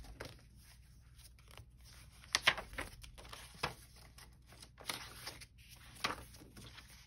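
Paper pages and flaps of a handmade journal being turned and handled: soft rustling with several sharp paper flaps and snaps, the loudest about two and a half seconds in.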